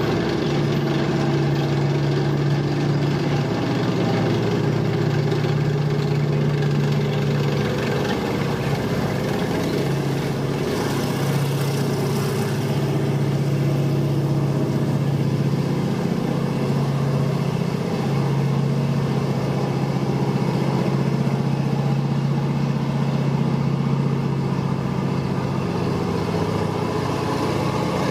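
Engines of vintage military vehicles driving past in procession, a steady low engine hum that dips briefly now and then. A brief hiss about eleven seconds in.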